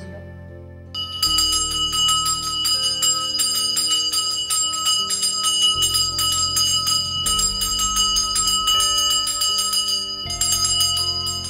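Brass hand bell (puja ghanta) rung rapidly and continuously, starting about a second in, during a temple puja with incense. Low sustained notes of background music run beneath it.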